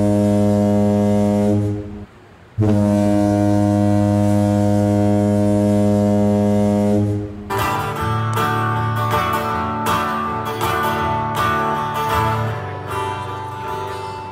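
A ship's horn sounds a long, low, steady blast that stops about two seconds in. After a short gap it blows a second long blast, which gives way about seven seconds in to a live electric guitar strumming chords through a stage sound system.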